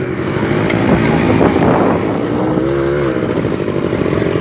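Quad bike engines running and revving, the engine pitch rising and falling about a second in.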